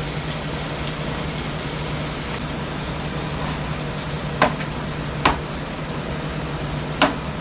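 Steady hiss with a low hum under it, and three sharp knocks of a knife on a cutting board in the second half as cooked sirloin steak tips are cut.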